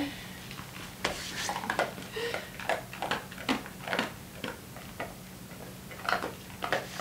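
Dalmatian chewing a treat, a run of short irregular clicks and crunches a few times a second, with a pause and then a few more near the end.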